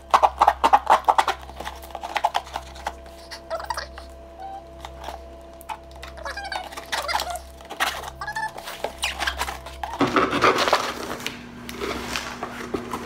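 A knife cutting open a cardboard box: quick scratchy slicing strokes and clicks of the blade against the cardboard, densest in the first couple of seconds, then slower scraping. About ten seconds in, the cardboard flaps are pulled open with a louder rustle and scrape.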